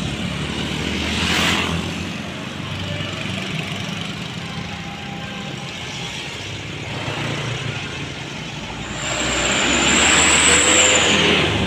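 Large bus engine running steadily, with a short swell of noise about a second in and a louder hiss with a high thin whistle from about nine seconds in, lasting a couple of seconds.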